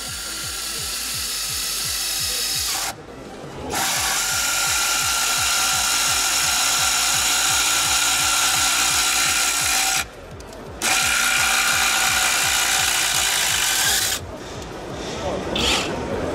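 Cordless screwdriver running under load as it drives a long screw into a solid timber beam. It runs in three long pulls with short stops about three and ten seconds in, then eases off near the end.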